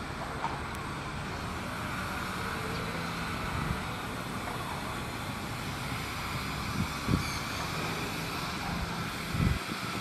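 Diesel engine of heavy earthmoving machinery running steadily, with a couple of brief low thumps near the end.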